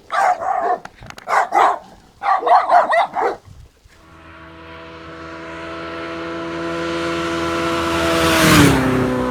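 A dog barking in a string of short barks, then a car approaching and passing. Its steady tone grows louder and drops in pitch as it goes by, about eight and a half seconds in.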